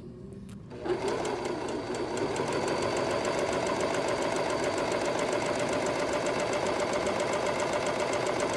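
Serger (overlock machine) starts about a second in and runs steadily with a rapid, even stitching rhythm, sewing a three-thread rolled hem over a thin wire along the edge of a cotton strip.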